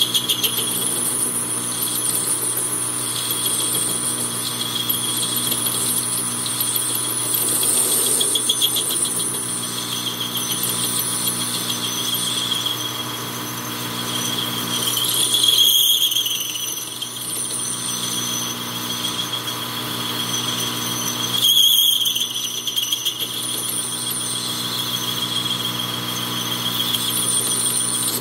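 Metal lathe running while a parting-off blade cuts into the spinning workpiece, giving a steady high squeal from the cut, with the blade rubbing a little on the side of the groove. The squeal swells and breaks off briefly twice in the second half.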